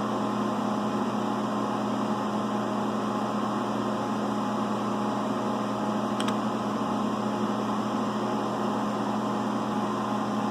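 Steady electrical hum of a phase converter supplying three-phase power to a CNC milling machine, with one faint click about six seconds in.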